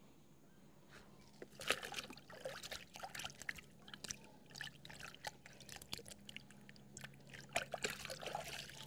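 Footsteps on bare dirt, with light irregular scuffing and crunching, starting about a second and a half in.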